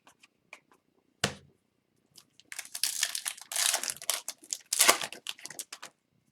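A single sharp knock about a second in, then about three seconds of crinkling and tearing as a foil hockey card pack wrapper is ripped open and handled.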